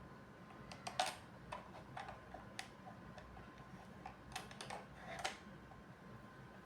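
Faint, irregular plastic clicks and taps from a battery cover being fitted onto the back of a Rapoo K8000M wireless keyboard, about a dozen spread over several seconds.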